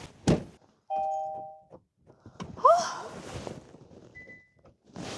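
A knock, then a steady two-note electronic chime lasting under a second, then a short rising electronic sound. The battery-powered device that sounds them turns out to be flat.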